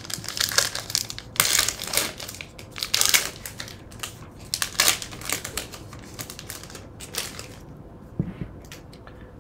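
Foil wrapper of a Panini Chronicles basketball card pack crinkling and tearing as it is ripped open by hand, a run of sharp crackles that dies down after about seven and a half seconds.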